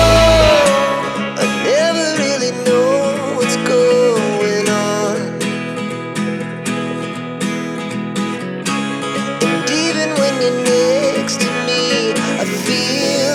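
Background music: a wavering melody over chords with a steady beat; the deep bass drops out about half a second in.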